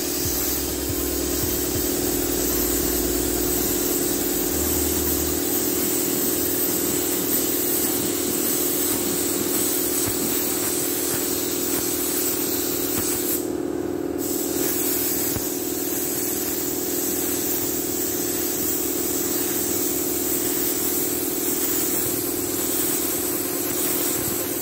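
Gravity-feed air spray gun hissing steadily as it sprays paint onto a bus body panel, over a steady machine hum. The hiss cuts out for about half a second midway, then resumes.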